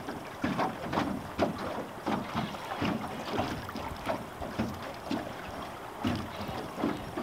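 River water slapping and knocking against the hull of a drift boat in irregular short splashes, with wind noise on the microphone.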